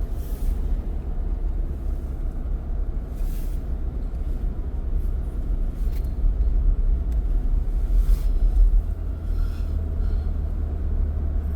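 A car driving along a snowy road: a steady low rumble of road and engine noise, with a few brief hissing swishes.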